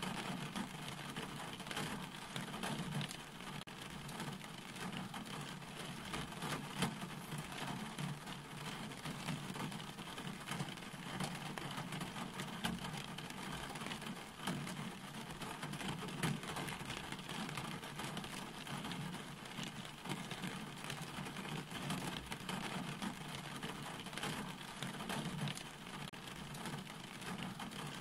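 Steady rain falling, with many separate drop hits heard close by.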